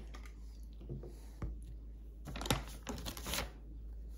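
A few scattered light clicks and taps, irregularly spaced, the sharpest about a second and a half in and small clusters around two and a half and three and a half seconds.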